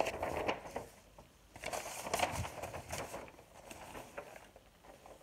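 Handling noise: rustling with small clicks and knocks in two spells, near the start and from about one and a half to three seconds in, as the paper sheet and the recording device are moved.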